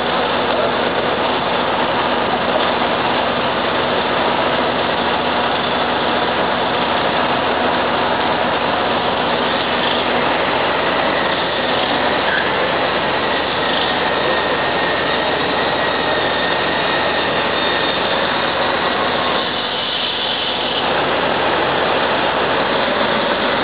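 Heavy diesel engines of a crawler bulldozer and a mud-bogged Tatra 815 dump truck running steadily at a constant pitch, with a brief slight drop in level about twenty seconds in.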